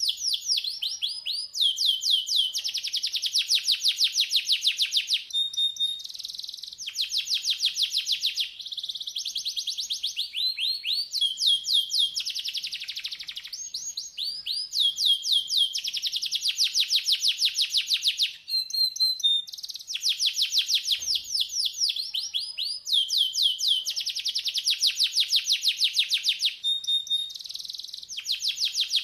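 Domestic canary singing: rapid rolling trills of quick repeated notes, in phrases of one to three seconds with short breaks between them.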